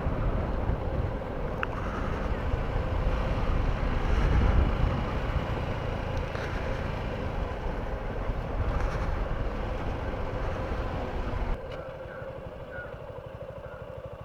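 Motorcycle engine running while riding, under the rush of wind on the microphone. Near the end the rush and rumble drop suddenly, leaving a quieter engine.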